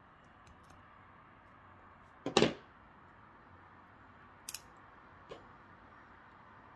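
Steel surgical instruments being handled and set down on a table: one loud clack about two seconds in, then a lighter double click and a faint click.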